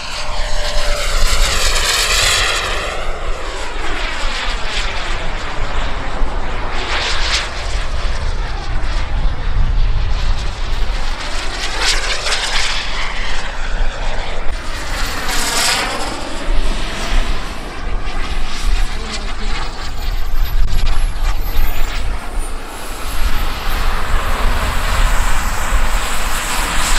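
Turbine engine of a radio-controlled model jet flying fast passes, its whine swelling and fading several times as it comes by, with a high whistle that glides in pitch. Wind rumbles on the microphone underneath.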